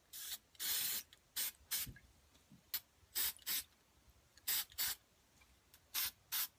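Aerosol spray paint cans hissing in about a dozen short bursts, the longest near the start, as paint is sprayed onto the surface of water for hydro dipping.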